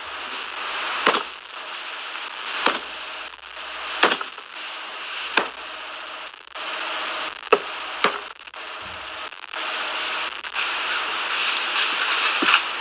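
A hatchet chopping wild boar meat on a wooden cutting board: six sharp chops at uneven intervals, the last two close together, over a steady hiss.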